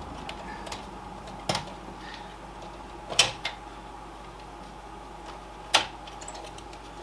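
Sharp clicks and knocks of hands working cables and parts inside a desktop PC case while SATA power and data cables are being connected to a newly mounted SSD. Three louder knocks stand out, the loudest about three seconds in, with lighter ticks between.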